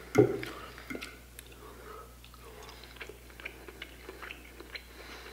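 A person chewing a mouthful of pan-fried fish, with faint scattered mouth clicks and light fork taps, after a short louder thump right at the start.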